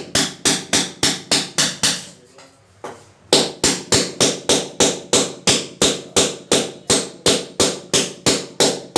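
A hammer striking in quick, even blows, about four a second, with a pause of about a second and a half about two seconds in.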